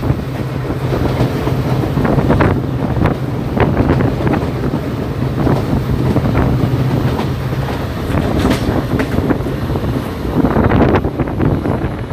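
Passenger train coach running at speed, its wheels clattering over rail joints with many sharp clicks over a steady low rumble. Wind buffets the microphone at the open doorway.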